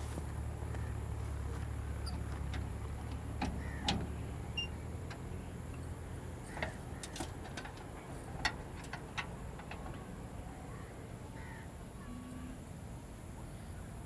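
Car engine running with a steady low rumble that drops away about five seconds in, with scattered sharp clicks and knocks.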